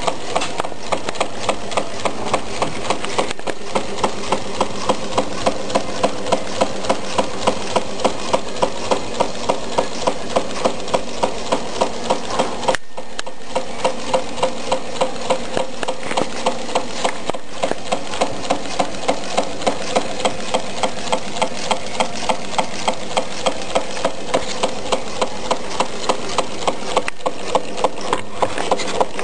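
Candle-powered Meccano Stirling engine running, its metal strips, crank and geared crankshaft clicking in a steady, even rhythm of about two to three knocks a second over a constant light rattle.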